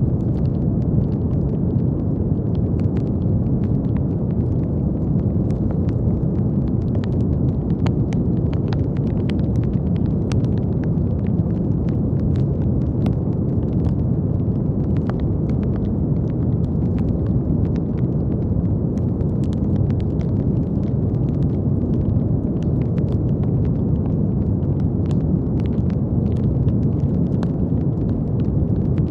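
Steady brown noise: a deep, even rumbling hiss with no change in level. Light crackles pop irregularly over it, several a second.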